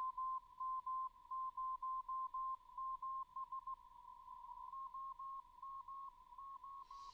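Morse code (CW) from the QO-100 satellite's narrowband transponder, turned into a tone near 1 kHz by a software-defined radio in CW mode. The tone is keyed in dots and dashes over a fainter steady carrier tone of about the same pitch, and the keyed marks get weaker about four seconds in. The pitch holds steady, a sign that the cheap Ku-band LNB's oscillator is not drifting.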